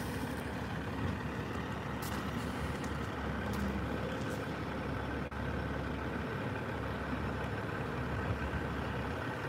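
Diesel engine of a semi tractor running steadily at low speed as the truck pulls away, a low, even rumble.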